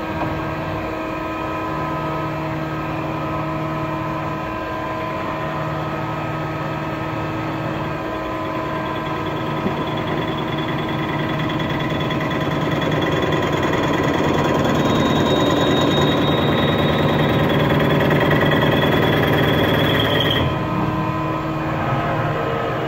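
Mazak CNC lathe turning a crankshaft: the spindle runs and the tool cuts, a steady machine hum with several tones that grows louder through the middle. A high whine joins about two-thirds in and cuts off suddenly near the end.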